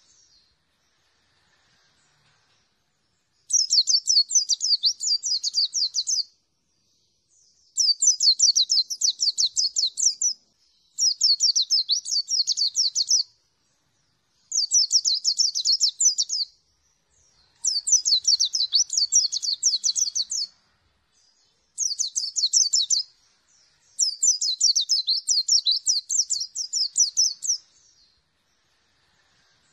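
Caged white-eye (pleci) singing in repeated bursts of fast, high twittering. There are seven bursts, each two to four seconds long, with short silent pauses between them.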